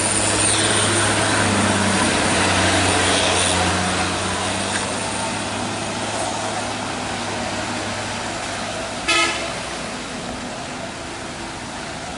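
Heavy truck diesel engine labouring steadily up the climb over the hiss of traffic on a wet road, loudest in the first few seconds and then fading. A short, loud vehicle horn toot about nine seconds in.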